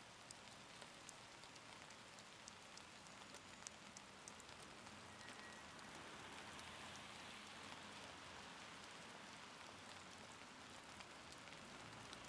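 Light rain falling on wet asphalt and a puddle: a faint, steady patter with scattered small ticks of single drops, which thin out about halfway through.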